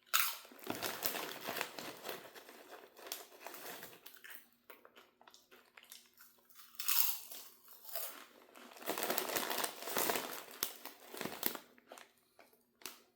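Crinkling of a potato chip bag being handled, in irregular bursts with short pauses, loudest about seven seconds in and again about nine to eleven seconds in.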